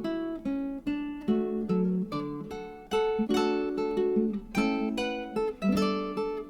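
Background music: an acoustic guitar playing plucked chords and notes, each striking sharply and then fading.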